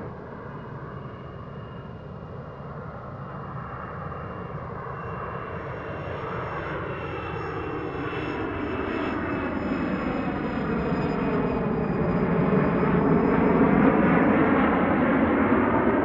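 Jet turbine of a large-scale radio-controlled T-45 Goshawk model in flight: a rushing engine sound with a thin high whine, growing steadily louder as the jet approaches and loudest near the end, its pitch shifting as it passes.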